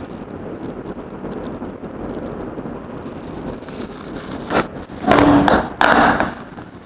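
A heavy-duty torch lighter's jet flame hissing steadily as it is held on a power strip's plastic body. About four and a half seconds in there is a click, then two loud short rushes of noise.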